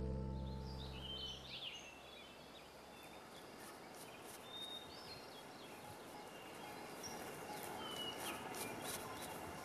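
Music fades out, leaving faint outdoor ambience with birds chirping. In the second half come light scratching strokes of an excavation brush and trowel working dry soil.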